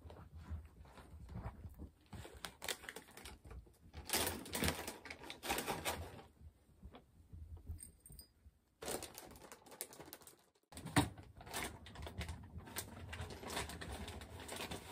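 Quick light taps and scrabbles on a hard floor from a Netherland dwarf rabbit's paws as it runs about, mixed with bare footsteps, and louder rustling bursts about four to six seconds in.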